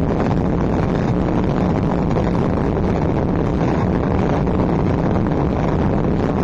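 Loud, steady, dense din of the tribe's drum and percussion band playing for the dancers, muddied into a rumbling roar on an overloaded camcorder microphone.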